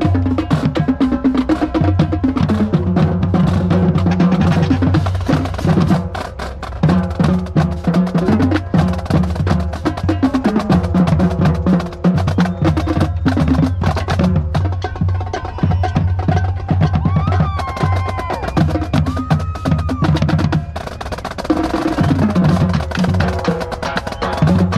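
Marching drumline playing a cadence: fast marching snare strokes and rolls over bass drums, with a steady low droning tone underneath.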